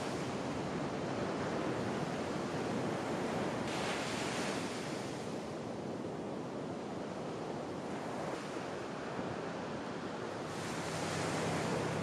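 Ocean surf breaking and washing up the beach, a steady rush that swells about four seconds in and again near the end.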